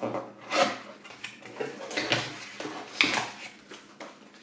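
Cardboard LEGO set box being opened by hand and its contents handled: an irregular run of sharp clicks, knocks and rustles of cardboard and plastic, loudest about half a second, two seconds and three seconds in.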